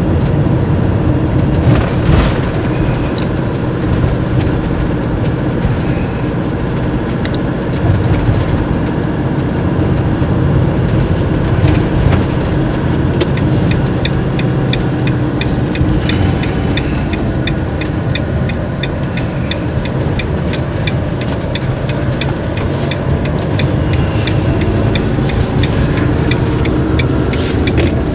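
Inside the cab of a Fiat Ducato–based Bürstner motorhome driving slowly: steady diesel engine and road rumble. From about halfway through, a run of quick, regular high ticks rattles over it.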